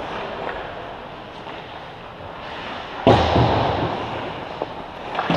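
Ice hockey play echoing around an indoor rink: faint knocks of sticks and puck, then one loud slam about three seconds in that rings on for about a second, with a few smaller knocks after it.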